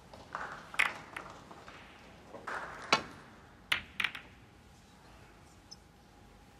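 Snooker cue and balls clicking: sharp single knocks of the cue tip on the cue ball and of ball on ball, about a second in, about three seconds in (the loudest), and a quick pair near four seconds in.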